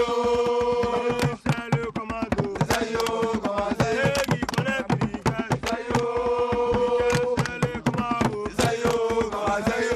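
Singing with drums: long, held, chant-like sung notes over quick, steady drum strokes.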